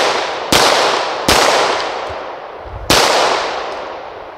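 A Gen 3 Glock 17 9mm pistol firing three shots, the last after a longer pause, each with a long echoing decay.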